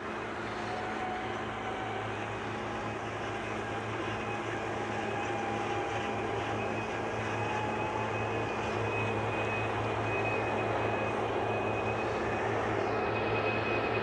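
Tractor engine running under load as it pulls a grain trailer toward the camera, a steady drone with a faint high whine, growing slowly louder as it approaches.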